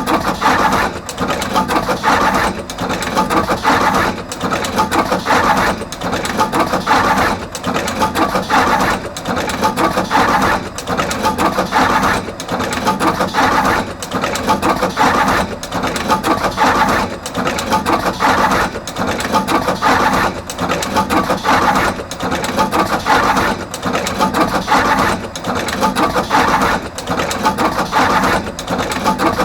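Artos CR22 automatic wire processing machine running, cutting, stripping and crimping terminals onto both ends of each wire. Its mechanical clatter repeats in a steady cycle about every two seconds.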